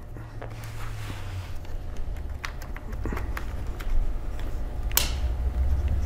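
Hands handling the open laptop's internals on a work mat: scattered faint clicks and taps over a low handling rumble, with one sharper click about five seconds in.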